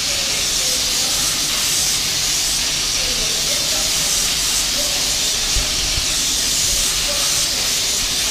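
Class 390 Pendolino electric train standing at the platform, venting compressed air in a loud, steady hiss.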